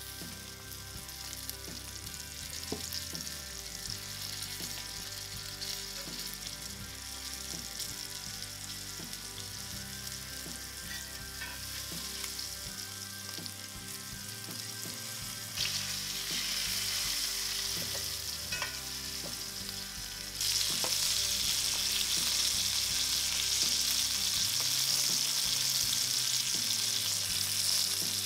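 Flour-dredged ribbon fish pieces frying in hot oil in a cast-iron skillet: a steady sizzle that grows louder twice in the second half.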